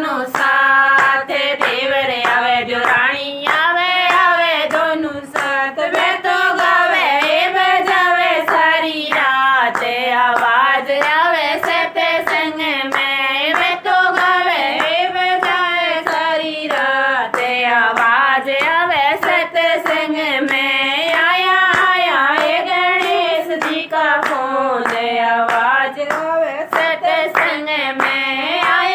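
A woman singing a Hindi folk-style Ganesh bhajan, with hand claps keeping time.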